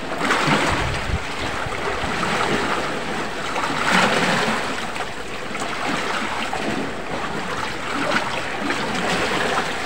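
Sea waves washing against a rocky shore in a steady wash of noise, with wind buffeting the microphone about a second in.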